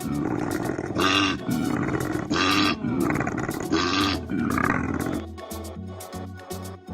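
A series of loud, roar-like animal calls, about one every second and a half, over background music. From about five seconds in, the calls stop and only music with a steady beat remains.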